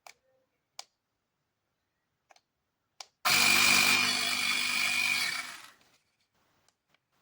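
Small electric air compressor of a CYCPLUS portable tyre inflator running in a short burst of about two and a half seconds: it starts abruptly about three seconds in with a steady motor whine, then winds down. A few small clicks come before it.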